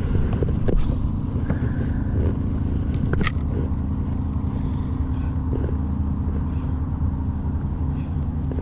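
A steady low engine hum, with a single sharp click about three seconds in.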